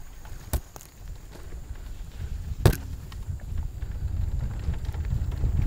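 Mountain bike in motion: a low wind rumble on the microphone grows louder as speed builds, broken by two sharp knocks from the bike jolting on the trail. The second knock, about two and a half seconds in, is the loudest.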